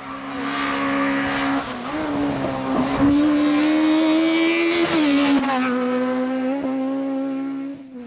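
Race car engine at high revs under full throttle on a hillclimb run, its pitch held high with brief dips at gear changes about two and five seconds in. It grows loudest around the middle as the car passes, then fades near the end.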